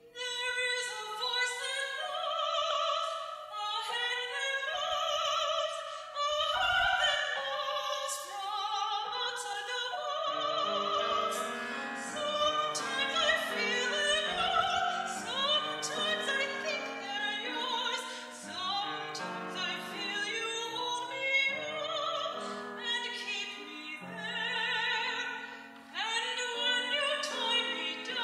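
Classical soprano singing with vibrato over piano accompaniment, the piano part filling out lower down about ten seconds in. The sound is a bit wobbly and uneven, as from an old cassette tape.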